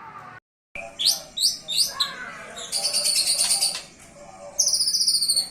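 White-rumped shama singing loudly: quick downward-sliding whistles, then a rapid trill, then a fast run of falling notes near the end. The audio cuts out briefly about half a second in, just before the song starts.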